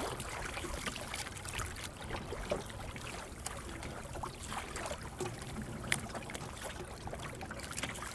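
Water splashing and trickling along the hull of a small wooden sailing yawl under way in a light chop: a steady wash broken by many small, irregular splashes.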